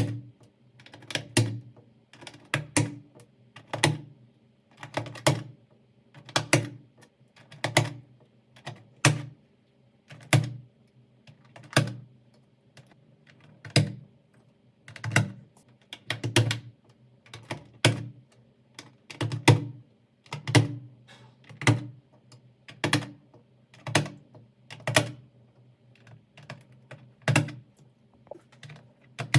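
Computer keyboard keys clacking in short clusters about once every second or so, each cluster with a low thud under the clicks.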